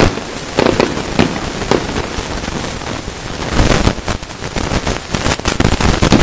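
Fireworks display: aerial shells and comets going off with repeated sharp bangs, turning into a rapid, dense run of bangs from about three and a half seconds in.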